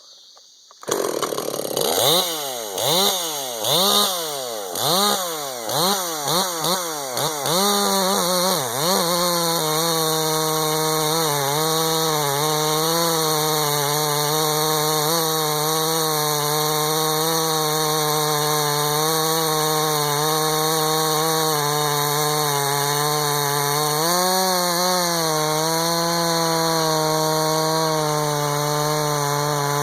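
Ported Husqvarna 350 chainsaw with a 353 top end, bored-out carb and dual-port muffler. For the first several seconds the throttle is blipped about once a second. From about nine seconds in the saw holds high revs through a long cut in hard ash, with the pitch wavering slightly and dipping briefly near the end.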